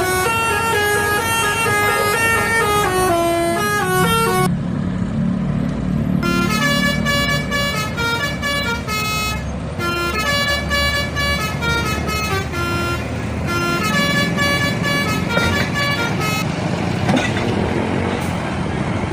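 Bus telolet horn playing quick runs of stepped melodic notes over a running engine. The notes stop for a moment about four seconds in, leaving a low rumble, then start again, and near the end they give way to engine and traffic noise.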